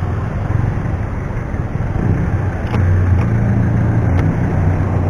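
Honda Dio scooter's single-cylinder engine running at idle, then pulling away about three seconds in, its steady hum getting louder.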